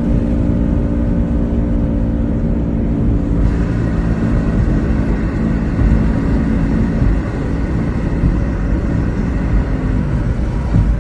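Vehicle driving at road speed: a steady low engine drone and road rumble, with a hiss that grows a little louder about three and a half seconds in.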